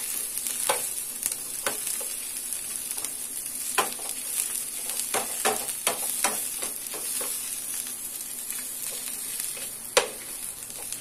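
Chopped onions and cashews sizzling in butter in a nonstick frying pan, stirred with a slotted steel spoon that scrapes and taps the pan at irregular moments, with a sharper knock about ten seconds in.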